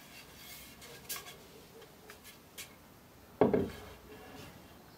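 Light clicks of tools being handled, then a sharp metallic clank with a short ring about three and a half seconds in.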